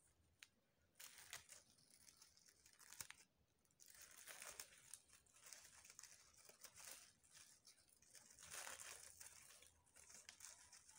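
Faint, irregular crinkling and rustling of stiff crinoline netting and fabric flowers being handled and pressed into shape by hand, in short scrapes with brief pauses between them.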